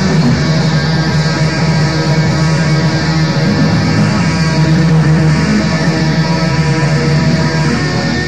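Raw black metal: distorted electric guitars playing a dense, steady wall of sustained chords.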